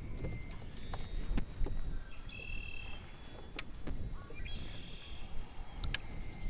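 Birds calling with short whistled notes, over a low wind rumble on the microphone. A few sharp clicks stand out, the loudest about a second and a half in.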